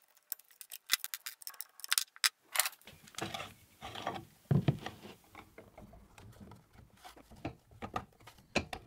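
Sharp metal clicks and taps as the mounting nuts of a lathe's electric motor are worked by hand, then heavier knocks and scraping as a single-phase electric motor is set onto the metal mounting plate and shifted into position.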